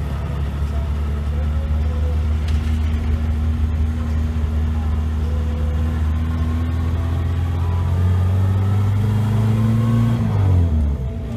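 Classic car's engine heard from inside the cabin while driving, pulling steadily with its pitch slowly rising, then the engine note drops sharply about ten seconds in.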